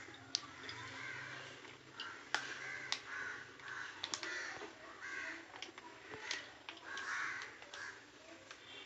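Crows cawing over and over, faint, with a few sharp clicks in between.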